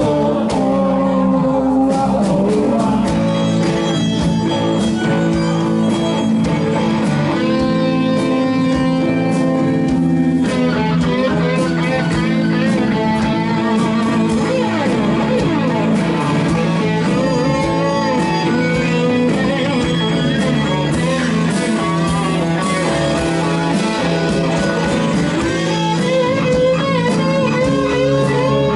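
Rock band playing live, with electric guitars to the fore over drums.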